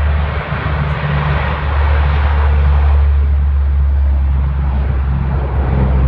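Four-engine turboprop C-130 Hercules running loud and steady, a deep drone with a broad rushing noise over it that swells slightly two to three seconds in.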